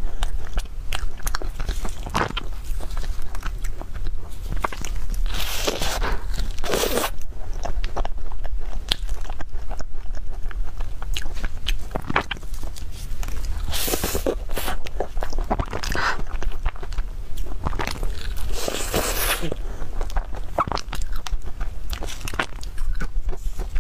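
Biting into and chewing a cream puff with a crisp crumb-topped shell. The crust crunches in several bursts with softer wet chewing between, over a low steady hum.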